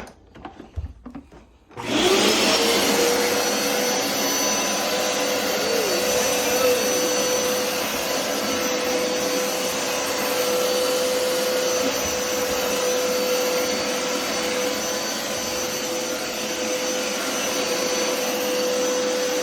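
Hoover PowerScrub XL carpet cleaner switched on about two seconds in. Its suction motor spins up to a steady whine with a rushing hiss and runs on while it sucks up a small amount of water.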